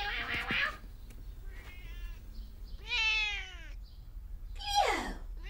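Siamese cat meowing: four separate meows, each falling in pitch, the loudest a long downward sweep near the end.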